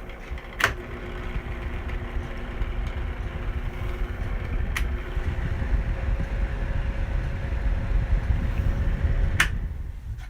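Vornado box fan running with a steady hum and low rumble from its very bad, worn motor bearings. Three sharp clicks come at intervals, and the sound drops away sharply near the end.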